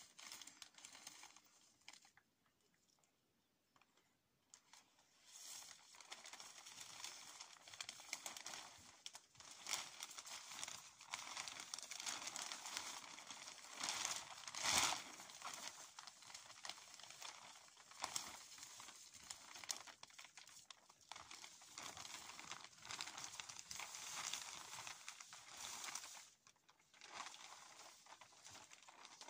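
A large sheet of clear plastic sheeting crinkling and rustling as it is unfolded and handled, with a short lull about two seconds in. The loudest crackle comes about halfway through.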